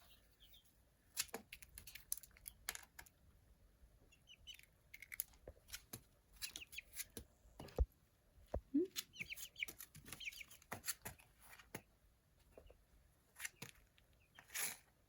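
Young chick peeping in short high chirps, a few at a time, with quick runs about five and ten seconds in. Scattered light taps and scratches run between the chirps.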